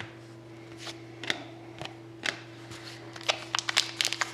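Hockey trading cards and a foil pack wrapper handled by hand: a few separate crisp clicks and snaps of card stock, then quicker clusters of crinkly clicks near the end as the foil pack starts to be worked open, over a steady low hum.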